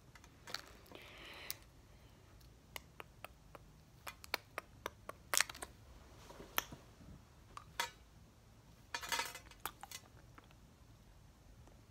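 Scattered small clicks and taps of a hard candy being handled and sucked, the candy clicking against the teeth, with two short hissing noises, one about a second in and one near nine seconds in.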